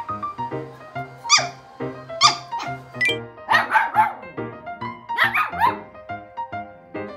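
A small puppy barking in several short, high-pitched yaps, some coming in quick clusters, over background music with a steady beat.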